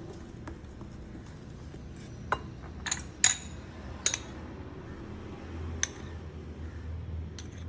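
Several sharp clinks and taps against a bowl as mango-and-flour dough is mixed and kneaded by hand, about six in all, the loudest a little over three seconds in.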